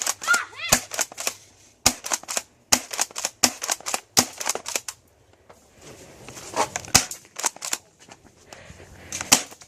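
Airsoft guns firing: irregular sharp pops, some in quick runs of several, with a lull about halfway through.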